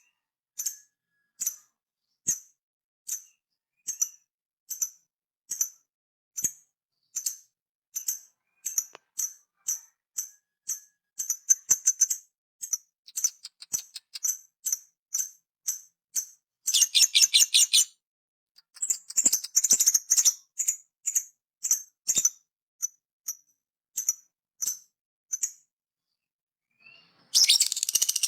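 A parrot giving short, high chirps over and over, about one a second at first and then faster. It breaks into louder, rapid chattering bursts about two-thirds of the way through and again near the end.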